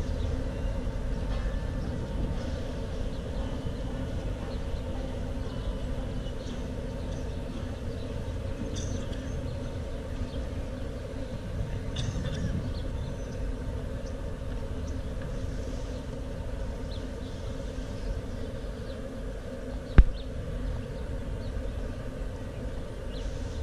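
Steady low rumble of city street traffic, with a single sharp click about twenty seconds in.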